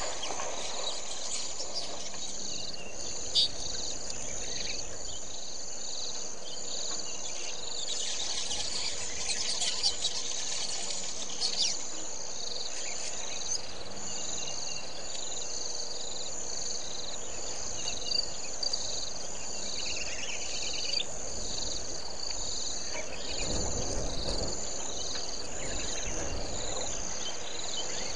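Steady chorus of insects trilling in even pulses, high-pitched, with a few bird chirps and several short sharp ticks. A low rumble swells briefly near the end.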